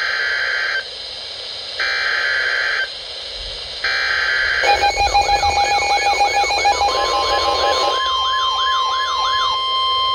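Emergency Alert System broadcast on NOAA Weather Radio: three short buzzing SAME data bursts about two seconds apart, then a fast wailing siren-like sweep mixed with rapid beeping, and about seven seconds in the steady 1050 Hz weather radio warning tone begins and holds.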